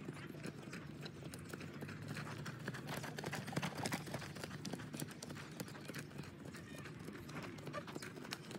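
A horse's hooves thudding on sand-arena footing at a trot, with many irregular soft beats.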